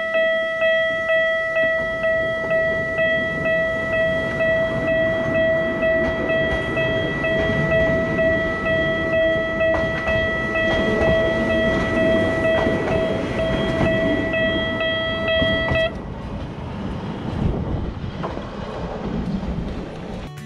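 Level crossing bell ringing in a steady, evenly repeating ding, with the low rumble of the Toyama Chiho Railway Alps Express electric train pulling out across the crossing. The bell cuts off suddenly about sixteen seconds in, leaving the train's fading rumble.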